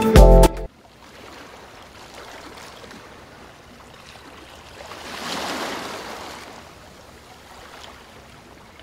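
Sea waves washing on a beach: a soft, steady wash with one wave swelling in and fading away about five seconds in.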